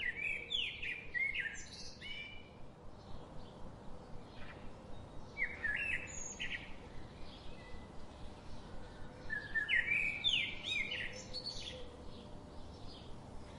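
Birds singing: three short bursts of quick, rising chirps about four seconds apart, with fainter chirps in between.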